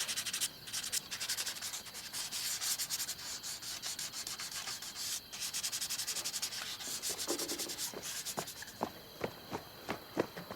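Rapid, repeated rough rubbing strokes that give way near the end to a few separate sharp taps.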